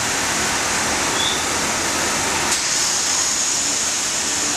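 Coal-fired steam locomotive giving off a steady, loud hiss of steam, with one sharp click about halfway through.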